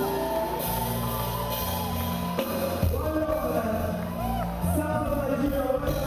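Live band music with a singing voice over bass guitar and a drum kit.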